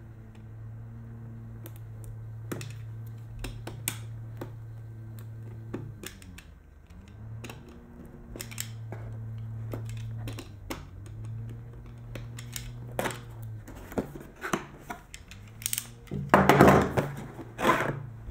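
Utility knife cutting the seal tape on a cardboard camera box, with scattered light clicks and taps, over a steady low hum. Near the end the cardboard lid is pulled open, with a louder burst of scraping and rustling cardboard.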